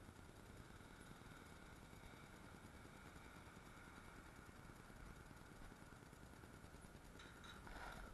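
Faint background of distant engines running, with a brief clatter near the end.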